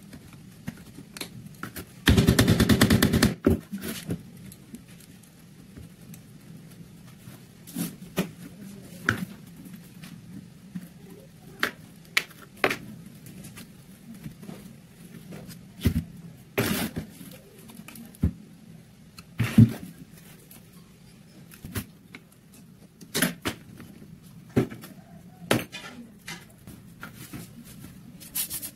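Handwork on a rusty Mauser M48 rifle: scattered clicks, taps and knocks of a screwdriver and metal fittings against the wooden stock and the bench. Near the start comes a loud rapid rattle lasting about a second.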